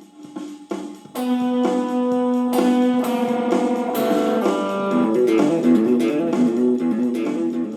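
Guitar playing: a few soft plucked notes, then from about a second in, louder ringing notes and a picked melody over held notes.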